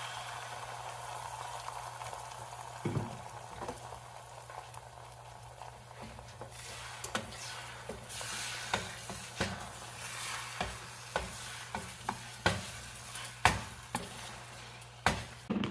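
Beaten eggs sizzling as they go into hot melted butter in a pan. From about halfway through, a utensil scrapes and taps against the pan in quick, sharp knocks as the eggs are stirred and scrambled.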